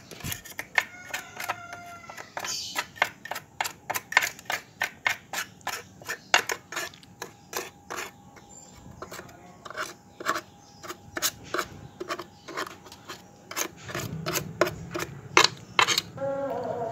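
Metal tool scraping and clicking against the steel oil pan of an industrial sewing machine, picking out oily sludge and thread waste. The sharp clicks come irregularly, a few a second.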